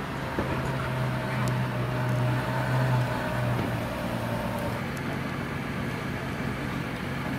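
Ferrari FF's naturally aspirated V12 running at low, steady revs as the car rolls slowly past. Its low hum drops away about two-thirds of the way through.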